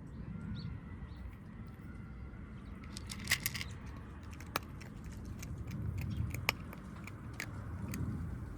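Cats crunching dry cat food: scattered sharp crunches and clicks, strongest in the middle of the stretch, over a steady low rumble.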